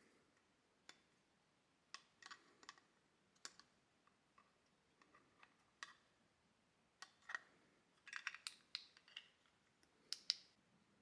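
Faint, scattered clicks and light rustles of small parts and packaging being handled, with a flurry of sharper clicks near the end.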